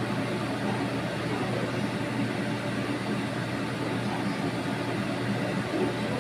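Steady rushing noise with a low hum underneath, from a running machine.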